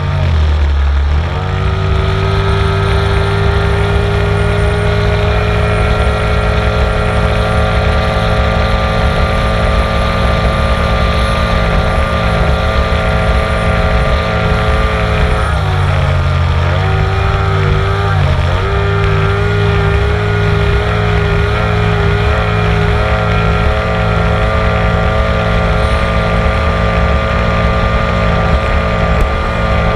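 Onboard sound of a racing motorboat's engine running hard. The pitch climbs in the first second or two and holds high, then dips twice about halfway through as the throttle eases, and comes back up to a steady high note.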